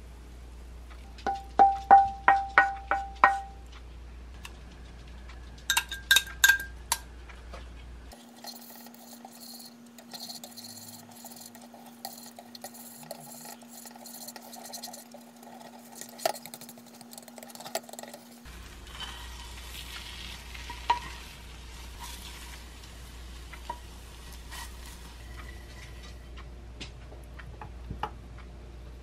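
A spatula knocks out a quick run of ringing clinks on the dishes while fried rice is served, then beaten egg is stirred and scraped in a small pan on a gas stove, cooking with a light sizzle over a low steady hum. Near the end the soft egg is scraped off the pan onto the plate with faint scrapes and taps.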